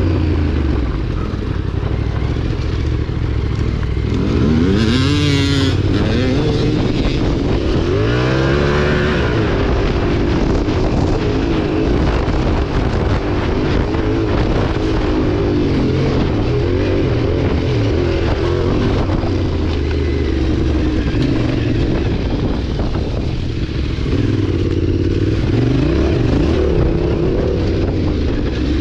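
Motorcycle engine running under way, its pitch rising and falling as the throttle is opened and closed, with clear rising revs about four seconds in and again about eight seconds in.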